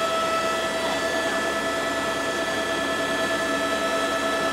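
Helicopter turbine and rotor noise heard from inside the cabin in flight: a steady, loud rushing drone with a constant whine over it.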